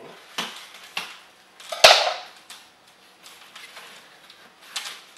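Solid wooden cat-tree planks being unpacked and handled: a handful of sharp clacks and scraping rustles, the loudest about two seconds in.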